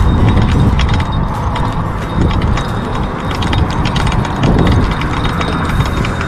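Spinning reel being cranked by hand, its gears and handle giving a rapid run of clicks and rattles, over a steady low rumble.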